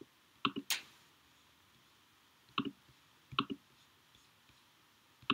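A handful of computer mouse clicks, several of them quick press-and-release pairs, spaced irregularly over a quiet background.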